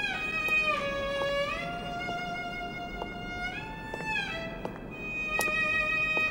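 Background score: a slow solo melody on a violin-like bowed string instrument, long held notes that slide smoothly into one another.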